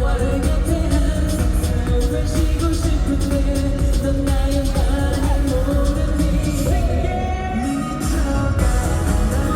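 A K-pop song sung by a boy group over a backing track with a steady heavy beat and bass. About seven seconds in, the high end of the mix drops out for about a second before the full track returns.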